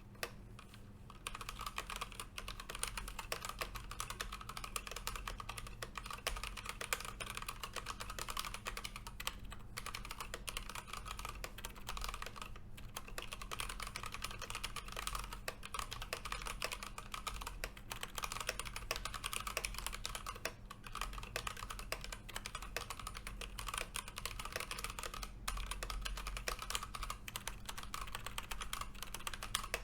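Keychron K8 mechanical keyboard being typed on: fast, continuous keystroke clatter starting about a second in, with a few short pauses.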